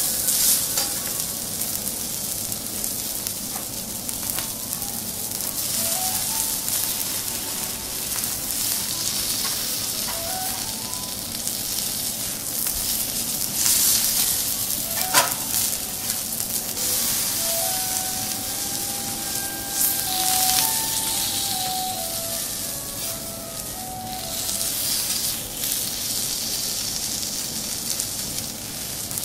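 Thick beef steak sizzling on a teppanyaki steel griddle as it is seared and turned. The hiss swells and eases several times, with one sharp click about halfway through.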